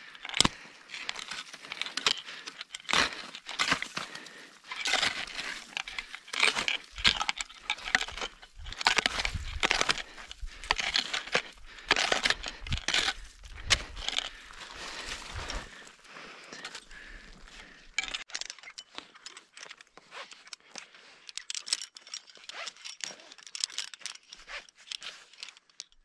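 Irregular crunching and scraping in snow with rustling of clothing and gear, from a climber moving on a steep snow slope. There is some low rumble in the first half.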